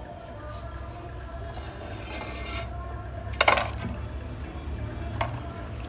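Pounded jaggery being scooped by hand from a stone mortar into a stainless steel pot: a short scraping rustle, then a sharp clink against the steel pot about three and a half seconds in, and a lighter knock near the end.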